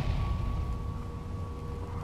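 Steady low wind rumble on the microphone, with a faint steady high tone behind it.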